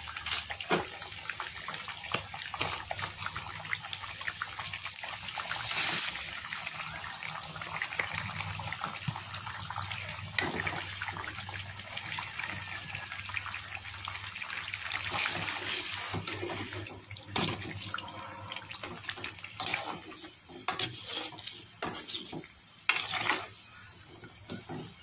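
Yam and hilsa fish curry bubbling in a metal wok, with short clicks and scrapes of a spatula against the pan, more frequent in the last several seconds.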